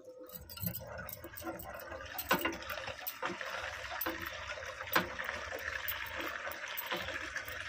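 Water gushing from a hand pump's spout into a plastic bucket, a steady splashing hiss with a few sharp clicks from the pump.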